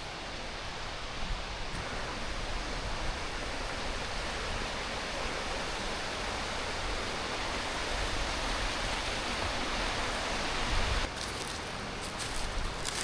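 Waterfall water rushing in a steady, dense roar of falling water, with a few brief crackles near the end.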